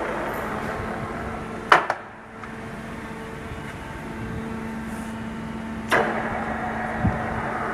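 A 1967 Niigata 2UMA milling machine running with a steady electric hum. Two sharp clacks come from its controls being switched about two seconds in, after which the running noise drops. Another clack comes about six seconds in, with a low knock a second later.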